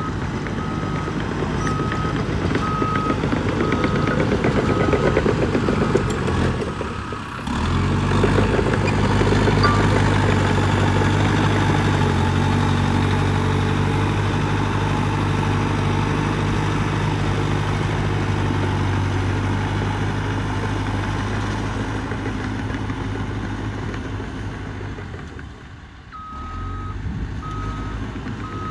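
Diesel engine of a Cat D3K 2XL bulldozer running steadily under load. A reversing alarm beeps evenly, about once a second, for the first several seconds and again near the end.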